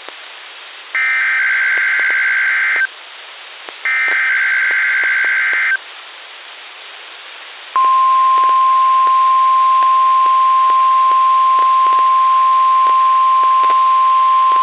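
NOAA Weather Radio test alert received over the air. One SAME digital header burst is just ending, then two more follow, each a harsh warbling data screech about two seconds long with a second's gap. About eight seconds in, the steady 1050 Hz warning alarm tone begins and holds. Faint radio static hiss and clicks can be heard between the bursts.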